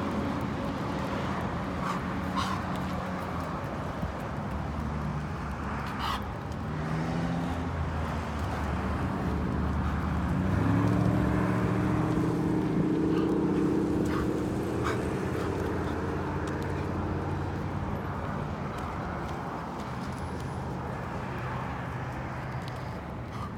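Road traffic: a motor vehicle's engine running, getting louder and rising in pitch about ten seconds in, then fading away over several seconds. A few faint clicks are scattered through it.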